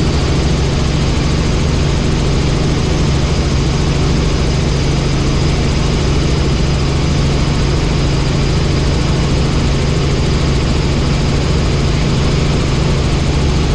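Helicopter in flight: a loud, steady drone of engine and rotor with a strong low hum that does not change.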